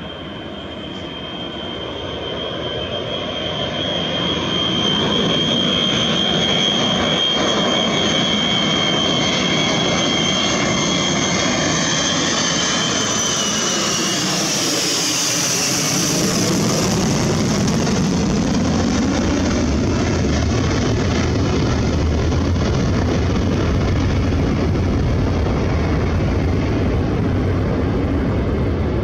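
Ilyushin Il-76's four Soloviev D-30KP turbofans at takeoff power as the aircraft climbs out and passes overhead. It swells in loudness over the first few seconds. A high engine whine drops in pitch about halfway through, then gives way to a deep roar as the aircraft moves away.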